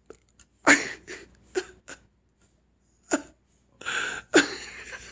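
A string of short, hiccup-like vocal bursts, several of them sweeping quickly down in pitch, followed by a longer breathy sound near the end.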